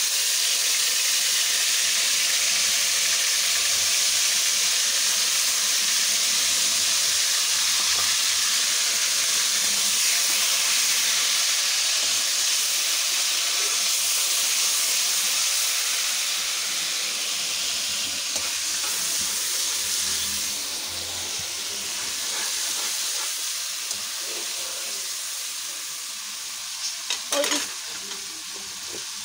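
Ginger-garlic paste frying in hot oil with cumin seeds in an aluminium karahi, sizzling hard while being stirred with a spoon. The sizzle eases off over the second half, and a few sharp taps come near the end.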